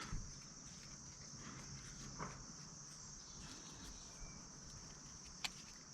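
Faint, steady high-pitched chorus of crickets, with a couple of soft clicks from grape clusters being handled and sorted.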